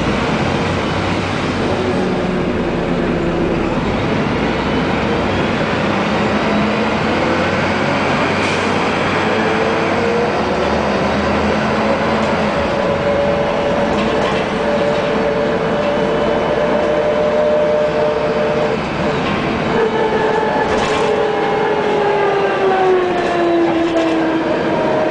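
Iveco EuroRider city bus heard from inside, its retarder and driveline giving a whine over the engine and road noise. The whine rises in pitch over the first half, holds steady, then falls away near the end as the bus slows on the retarder.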